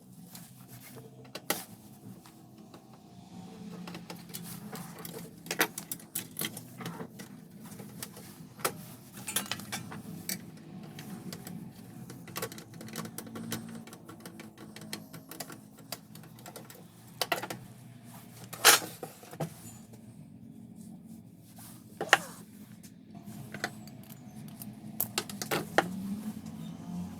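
Irregular clicks and light knocks of hard plastic and metal printer parts being handled, over a faint low hum.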